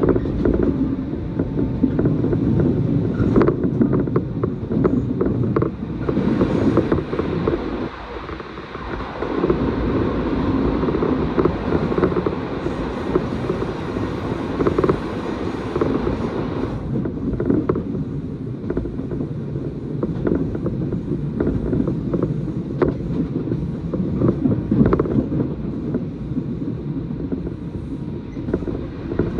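Interior running noise of a moving train: a steady rumble of wheels on rails with scattered clicks and knocks from the track. A louder rushing hiss joins in about six seconds in and drops away about seventeen seconds in.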